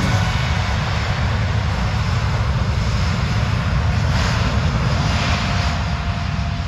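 Boeing 787's twin Rolls-Royce Trent 1000 turbofans running as the airliner lines up and begins its takeoff roll: a steady low rumble with a hiss of jet noise.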